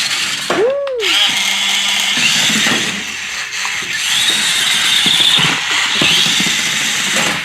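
Battery-powered remote-control toy stunt car's small electric motors whirring at speed, the whine rising and falling as it drives and spins.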